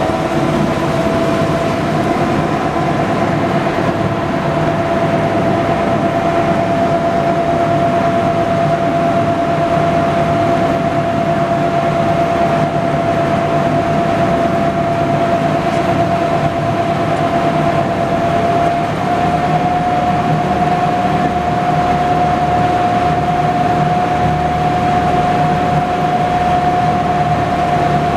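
Engine of a World War II DUKW amphibious 'duck' boat, its original gasoline engine, running steadily under way on the water. A loud drone with a high steady whine on top, which climbs a little in pitch in the first second or two and then holds.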